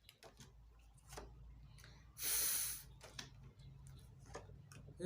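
A single voiceless, hissing letter sound spoken in isolation for under a second, about two seconds in, over a faint steady low hum.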